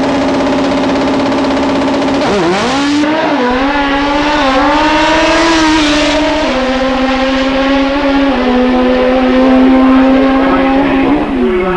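Pro Comp drag-racing motorcycles held at steady high revs on the starting line, then launching about two seconds in. The engine note climbs and drops back several times as the bikes shift up through the gears down the strip, and falls away near the end as they shut off.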